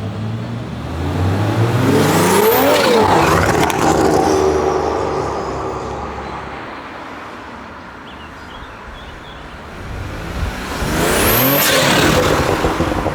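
Two cars driving past at speed, the first about two to three seconds in and the second about eleven seconds in; each engine note rises as it approaches and drops as it goes by.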